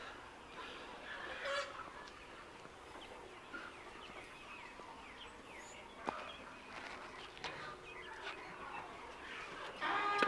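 A flock of chickens clucking and calling, faint and scattered, with a louder burst of calls near the end.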